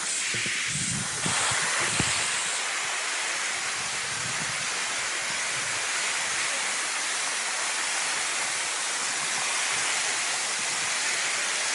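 Waterfall: a steady rush of falling water, with a short knock about two seconds in.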